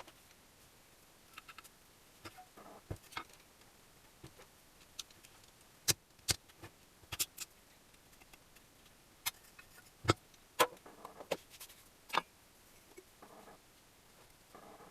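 Scattered sharp clicks and light metallic knocks, irregularly spaced, with brief soft rustles between them: engine parts and hand tools being picked up, set down and fitted during engine assembly.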